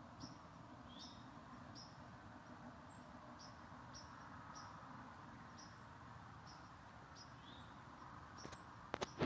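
Faint high chirps of small wild animals, repeating about twice a second over a low steady hiss, with two sharp clicks near the end.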